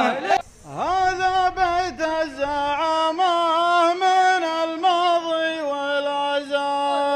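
Male voices chanting a verse of Gulf poetry to a tarouq, the sung melody of a poetry duel. Long held notes with small turns in pitch, and a brief break just after the start.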